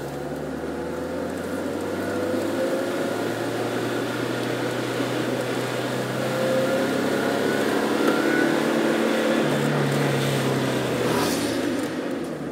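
Car engine running and tyre and road noise heard from inside the cabin while driving, the engine note shifting a couple of times as the car keeps moving.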